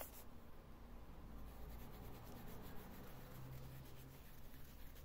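Faint scratchy rubbing of a small brush on a soft pastel stick and on the crocheted yarn of a toy's face, over a low steady hum.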